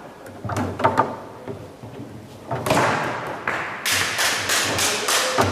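Foosball in play on a Leonhart table: the ball and rods knocking sharply against the plastic figures and the table walls. Scattered knocks at first, then a quicker run of louder strikes in the last second and a half.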